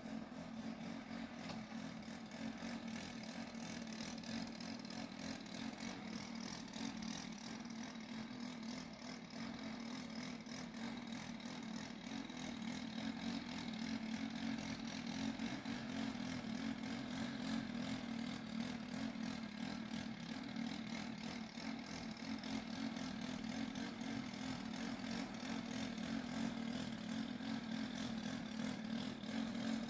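An engine running steadily at a constant speed, a low hum that grows slightly louder about twelve seconds in.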